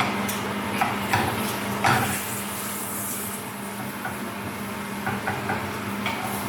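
Corn tortillas sizzling in a little oil in a frying pan, with metal tongs clinking against the pan several times in the first two seconds and lightly again later.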